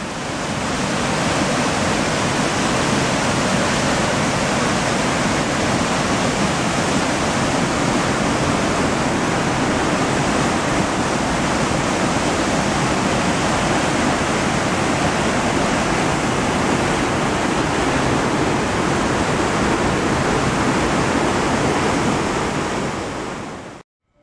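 Water gushing through an opening in a concrete canal sluice gate and crashing into the channel below, a loud, steady rush that cuts off suddenly near the end.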